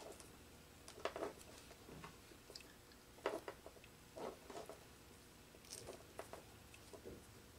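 Faint, irregular clicks and crackles of hands twisting stranded electrical wires together and screwing a plastic wire nut onto them.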